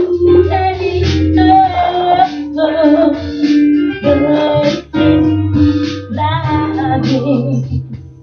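A recorded song playing: a singer's voice in phrases over keyboard and a steady bass line.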